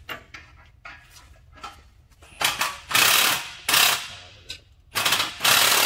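Impact wrench hammering at a fastener on a Jeep Cherokee's steering gear to break it loose, in four bursts starting about two and a half seconds in, the first and last about a second long. Light clicks and knocks come before it.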